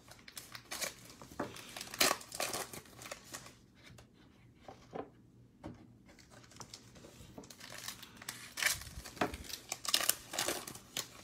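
Foil wrapper of a Mosaic basketball card pack crinkling and tearing as it is opened by hand, with the cards being slid out and handled. There is a quieter pause in the middle, and the crinkling picks up again near the end.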